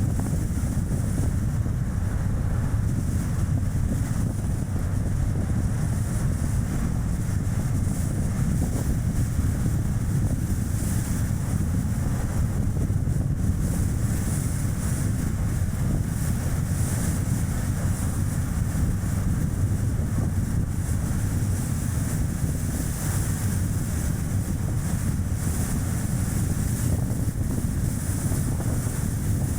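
Strong wind buffeting the action camera's microphone over the steady low rumble of a Chevrolet Spark's tyres on the road while driving.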